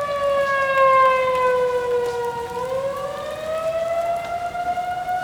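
Outdoor tornado warning sirens wailing. The nearest siren's pitch slowly falls, then climbs again from about halfway through, and a second siren's tone comes in alongside it near the end.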